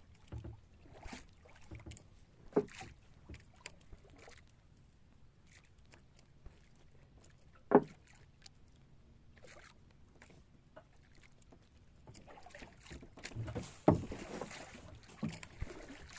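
Scattered knocks and handling noises aboard a small fishing boat during hand-line fishing, with a sharp loud knock about two and a half seconds in and another near eight seconds, and a busier patch of rustling and knocks near the end.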